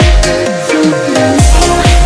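Electronic dance music with a steady kick-drum beat about twice a second. The beat and bass drop out for about a second mid-way, then come back.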